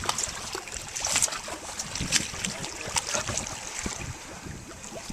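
Water splashing and lapping around a small fishing boat, with irregular sharp splashes about once a second and wind on the microphone.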